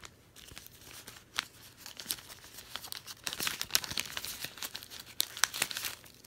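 Small clear plastic zip baggies from a diamond painting kit crinkling as they are handled, a dense run of crackles that gets busier and louder about halfway through.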